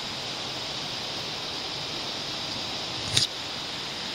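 Steady, even hiss with a single short click or tap about three seconds in.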